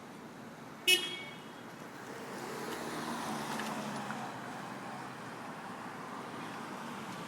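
A car horn gives one short toot about a second in. Traffic noise follows as a vehicle passes, swelling and then easing.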